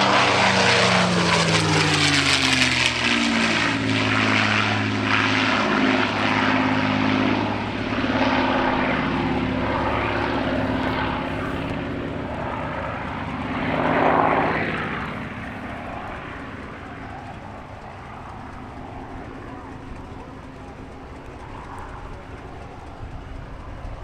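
The XP-82 Twin Mustang's twin piston engines pass loudly with their note falling in pitch. The sound swells briefly again about fourteen seconds in, then fades away.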